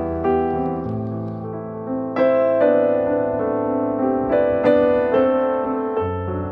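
Background piano music: slow notes and chords, each struck and left ringing, a new one every half second or so.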